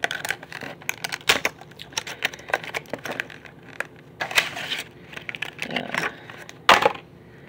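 Clear plastic lure packaging being worked open by hand: irregular crinkling and crackling of stiff plastic, with a louder crackle near the end.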